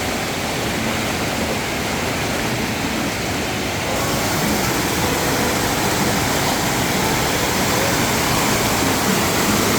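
Steady rush of a waterfall's falling water, a little louder from about four seconds in.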